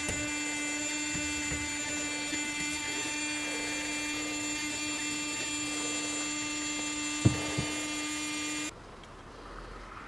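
Compressor of a homemade heat pump running with a steady hum, cooling hard enough to frost the evaporator coil. Two sharp knocks come about seven seconds in, and the hum cuts off suddenly near the end.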